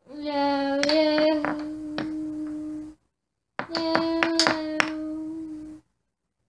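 A child's voice holding a long sung note twice, each a couple of seconds long and cut off abruptly, with several sharp taps or claps over it.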